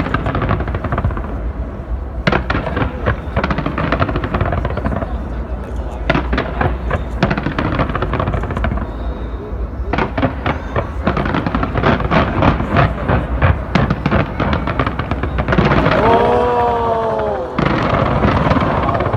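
Aerial fireworks going off in dense volleys of rapid crackling cracks and bangs. Near the end a person gives a long, drawn-out shout over them.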